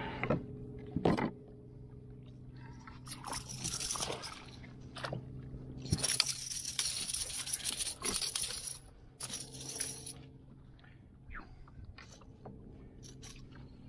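A rubber landing net and fishing gear being handled on a kayak: clicks and knocks against the hull near the start, then rushes of splashing water as the net is dipped and swished beside the boat, in three bursts.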